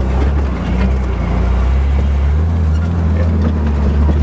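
Ford Bronco II's engine running as it drives an off-road trail, a steady low drone whose pitch rises about two and a half seconds in as the revs pick up. A few light knocks sound over it.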